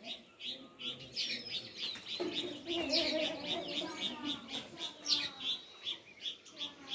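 Sparrows chirping in a rapid, continuous run of short, high chirps, about four a second and overlapping. A lower pitched sound sits beneath them for a couple of seconds in the middle.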